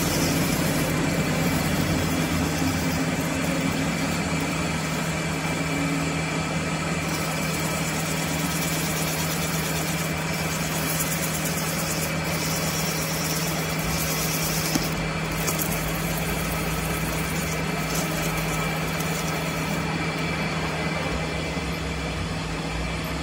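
Metal lathe running with a steady low hum while a hand-held strip is pressed against the turning camshaft, adding a hiss that swells and fades at times.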